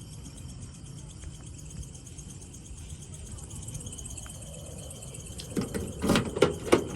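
Knocks and clatters of objects being handled, starting about five and a half seconds in, over a steady low rumble and the chirping of insects.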